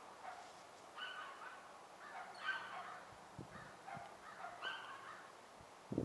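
Animal calls: short pitched cries repeated irregularly, about one or two a second.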